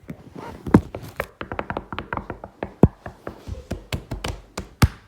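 Rapid, irregular tapping and knocking at several sharp strikes a second, with louder knocks at about one, three and five seconds in.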